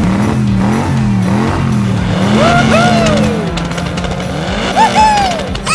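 Vehicle engine noise with squealing, pitch-sliding sounds over background music.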